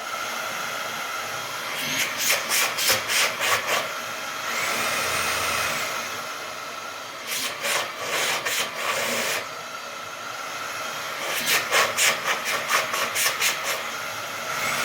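Eufy HomeVac S11 Reach cordless stick vacuum running steadily in max mode, with three stretches of rapid rattling and scraping over its steady whine.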